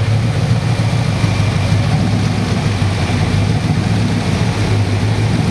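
Nelson Racing Engines 427-cubic-inch (7-litre) LSX twin-turbo V8 in a Mosler MT900 idling steadily at the exhaust tips. The idle is even, mellow and stock-sounding.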